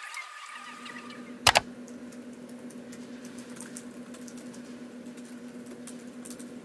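Light, quick tapping on a laptop keyboard over a steady low hum. A sharp double knock about one and a half seconds in is the loudest sound.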